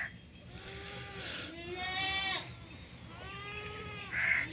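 Goats bleating, several long wavering calls one after another, with a short harsh bird caw near the end.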